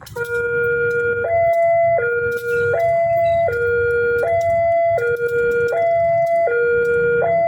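Electronic two-tone warning alarm of a railway level crossing, alternating a low and a high tone about every three-quarters of a second, signalling that a train is approaching and the crossing is closing.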